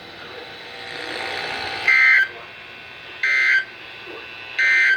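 Three short bursts of Emergency Alert System end-of-message data tones (SAME digital bursts), a buzzy two-tone warble, about a second and a third apart, over a low hiss of radio static. They mark the end of the alert message.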